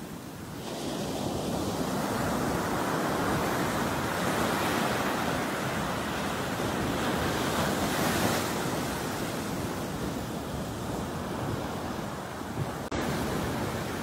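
Ocean surf breaking and washing up a sandy beach: a steady rushing wash that swells up about half a second in and is loudest around the middle, with a brief sudden dropout near the end.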